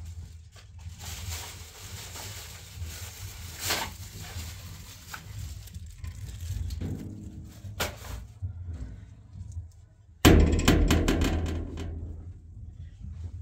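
Household handling noises: light knocks and cloth rustling as bedding is moved, then a sudden loud rustle about ten seconds in that dies away over about two seconds.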